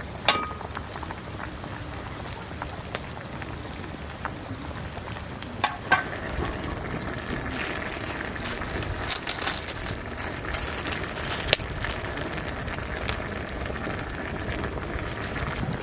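Wood campfire crackling steadily, with a few sharp pops.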